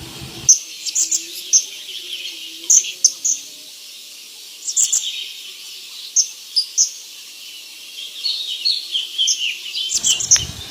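Birds chirping: short, high chirps in scattered groups, with a quicker run of gliding notes near the end.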